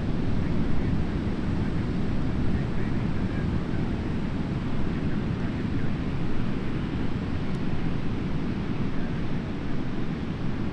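Steady low rumble of wind buffeting the microphone mixed with breaking ocean surf.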